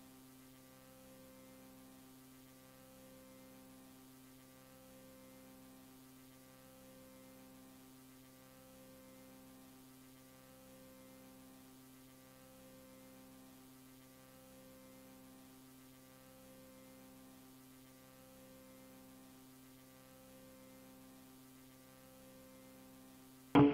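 Faint, steady electrical-style hum made of a few low tones, pulsing slowly about every two seconds.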